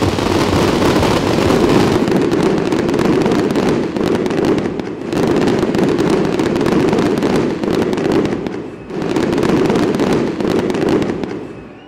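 Aerial fireworks display: a dense, continuous barrage of shell bursts and crackling, dipping briefly twice before fading out near the end.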